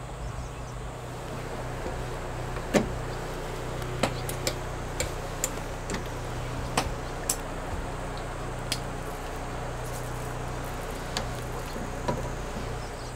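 A steady low motor hum with scattered sharp ticks through it.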